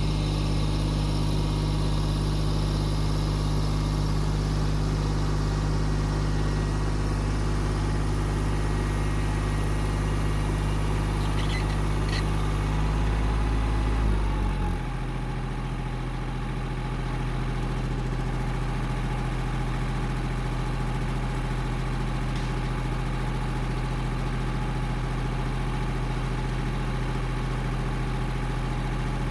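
Small tractor engine running steadily, then dropping to a lower, steady speed about halfway through, just after a brief rise in loudness.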